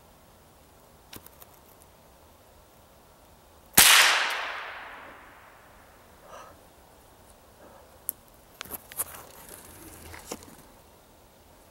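A single close gunshot about four seconds in, its report ringing on through the woods and fading over a second or two. A few light clicks and rustles follow near the end.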